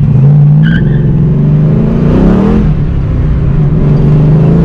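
1986 Ford Mustang GT's 5.0-litre V8 pulling hard under acceleration, loud, its note climbing, rising and dropping back about two seconds in, then climbing again.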